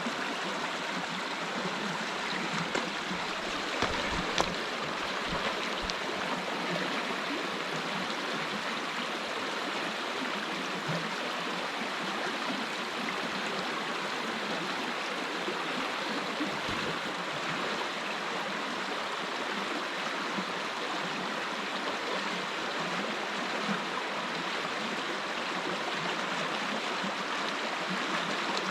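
Whitewater of the Grey Wolf River's falls: a steady rush of falling and cascading water. A few brief low thumps come about four seconds in and again just past the middle.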